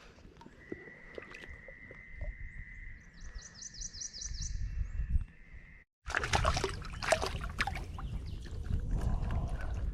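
Birds calling: a long, steady high note, with a quick run of about eight higher notes over it partway through. After an abrupt cut, water sloshes and splashes with sharp clicks, as of someone wading.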